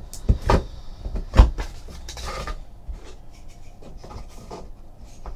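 Handling of trading card boxes and packaging on a table: a few sharp knocks, the loudest about a second and a half in, with a short rustle after.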